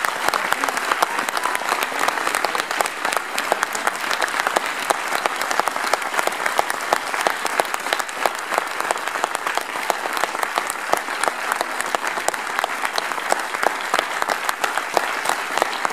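Audience applauding steadily: a dense mass of many hands clapping, with no let-up.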